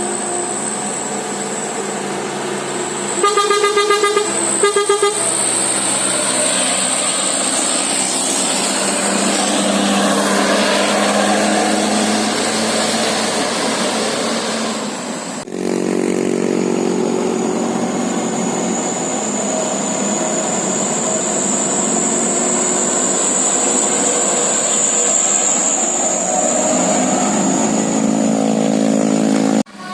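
A bus's musical 'telolet' air horn sounding in two rapid stuttering bursts about three seconds in, over steady traffic and engine noise. More horn tones follow later.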